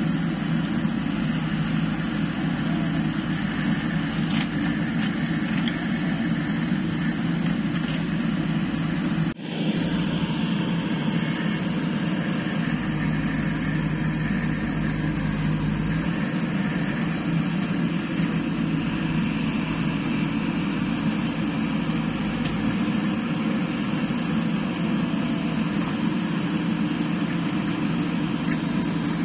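JCB backhoe loader's diesel engine running steadily as the machine works through mud, with a brief break about nine seconds in.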